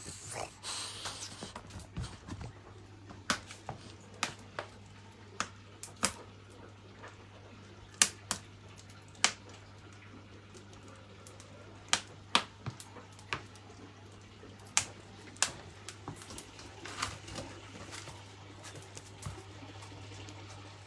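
Wood fire crackling in a wood-burning stove: irregular sharp pops, a second or so apart, over a steady low electrical hum.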